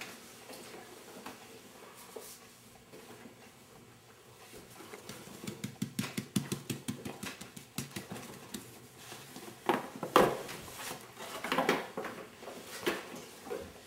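A metal spoon stirring flour in a stainless steel pot, a fast run of small scraping clicks, then louder crinkling of the paper flour bag as its top is folded over.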